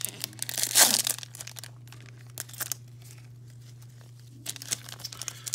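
A baseball card pack's wrapper being torn open, with a loud rip about a second in, then crinkling and crackling as the wrapper is handled.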